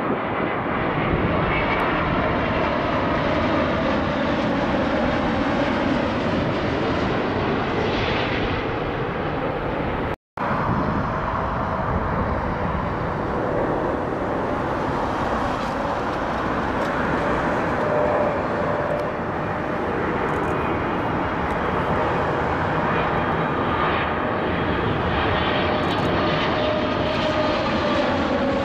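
Jet airliners passing low on final approach: first a Boeing 787-9 Dreamliner, then, after a brief cut about ten seconds in, a Boeing 777-300ER with its GE90 engines. Steady jet engine noise at approach power, with a whining tone that slowly drops in pitch near the end.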